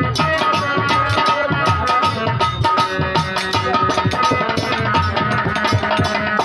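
Instrumental break in bhajan music: quick, dense hand-drum strokes under held melodic notes.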